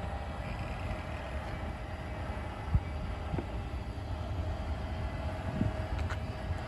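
Electric front slide-out of a Jasmine OES FUQI-F5S off-road caravan running as it draws in: a steady mechanical hum and low rumble, with a few knocks, the loudest about three seconds in.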